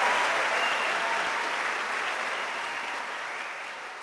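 Concert audience applauding, the clapping fading out steadily.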